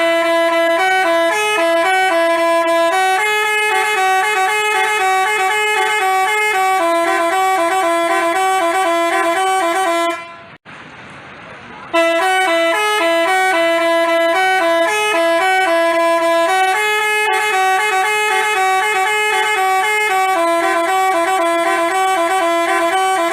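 Basuri telolet horn playing a multi-note tune in stepping horn tones. The same melody of about ten seconds sounds twice, with a short break of about a second and a half between.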